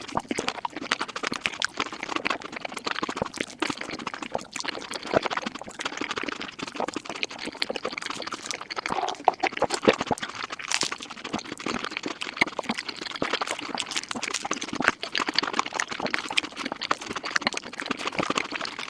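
Mukbang eating sounds sped up to five times normal speed: a rapid, continuous stream of wet chewing, smacking and slurping clicks.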